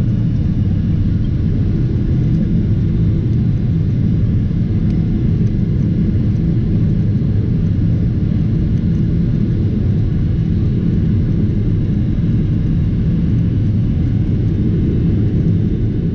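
Steady low rumble of a Boeing 777-300ER's GE90-115B engines and rushing air, heard from inside the economy cabin as the airliner climbs after takeoff.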